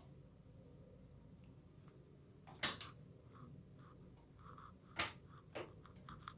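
Quiet room hum with a few sharp knocks: a double knock about two and a half seconds in and two more near the end.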